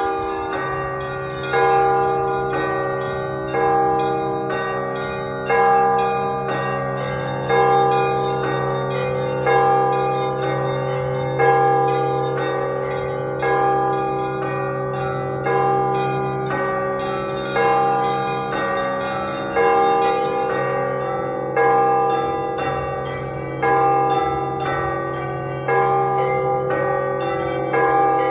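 Orthodox church bells rung together in a continuous rhythmic peal. Smaller bells chime several strokes a second over a louder heavy stroke about every two seconds, with a deep bell's hum sustained underneath.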